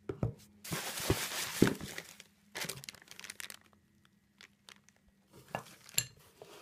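Plastic bags and bubble wrap crinkling and rustling as parts are unpacked from a cardboard box, in two stretches, with a few sharp clicks near the end.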